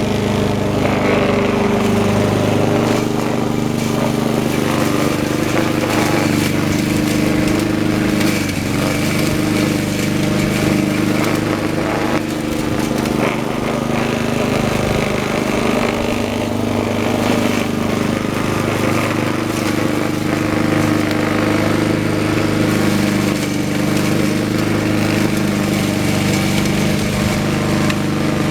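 Troy-Bilt 21-inch walk-behind lawn mower, modified to cut very tall grass, running steadily while mowing, its engine note holding an even pitch.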